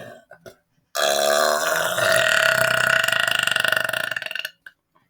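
A man's long, deliberate burp, starting about a second in and lasting about three and a half seconds. It is pitched and flutters toward the end before stopping abruptly. A few small clicks come just before it.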